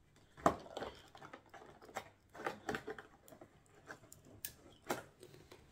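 Clear plastic clamshell snack box being handled and opened: crackling and sharp clicks of the thin plastic, the loudest snap about half a second in.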